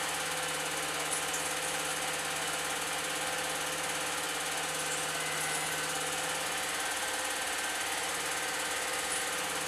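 Old 8mm film projector running, a steady mechanical whirr with a constant low hum.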